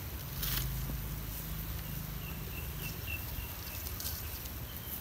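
Outdoor ambience: a low rumble on the microphone, a brief rustle about half a second in, and a faint run of short high chirps in the middle.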